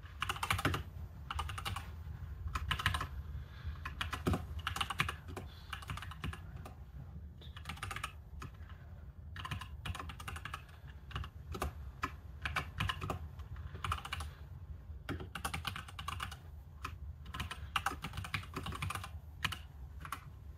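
Typing on a computer keyboard: rapid key clicks in bursts separated by brief pauses, over a low steady hum.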